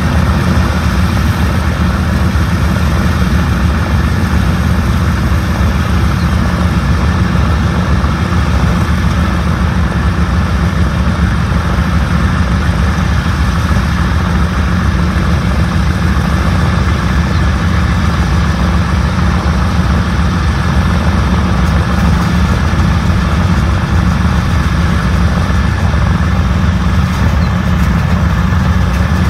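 Boeing B-17 bomber's Wright R-1820 Cyclone nine-cylinder radial engines running at a steady idle on the ground after start-up, loud and even.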